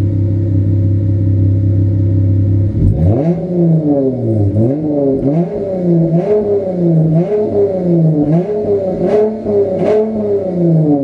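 2013 Chrysler 300 engine heard at the exhaust tailpipe: it idles steadily, then about three seconds in is revved in repeated blips, the pitch rising and falling about once a second.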